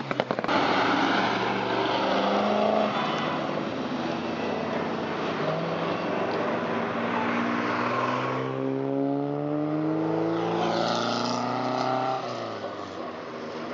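Car engine driving by under acceleration, its note climbing steadily through the middle and then dropping away near the end.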